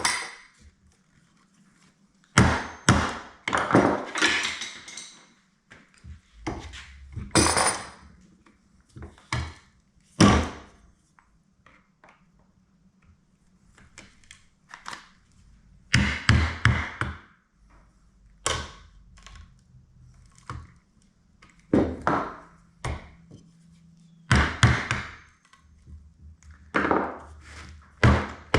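Irregular knocks, clanks and short scraping runs of hand tools on the metal parts of a corroded Whirlpool GC2000XE half-horsepower garbage disposal as it is taken apart. There are a dozen or so separate bursts with pauses between them.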